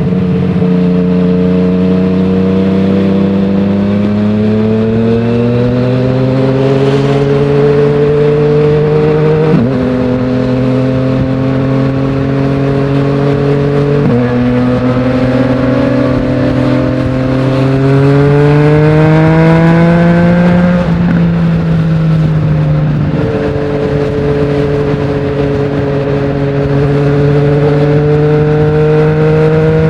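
Yamaha MT-09's inline three-cylinder engine through an Akrapovic full exhaust with no dB killer, pulling at moderate revs. Its pitch climbs slowly and drops sharply at upshifts about ten and fourteen seconds in. It falls off as the throttle closes about two-thirds through, then holds an almost steady note at a cruise.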